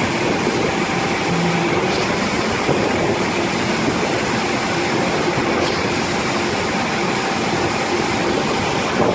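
Construction machinery running steadily on a concrete pour: a continuous mechanical noise with a faint steady hum and whine running through it.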